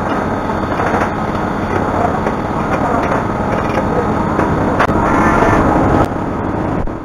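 UDM-2216 three-axis CNC machining centre milling a steel mold core: a loud, steady machining noise, a little louder for about a second near the end.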